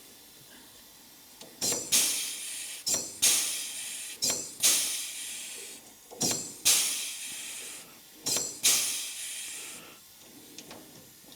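Pneumatic pop-rivet gun setting blind rivets, pulled about five times. Each pull gives a sharp click and then a burst of air hiss that dies away over about a second.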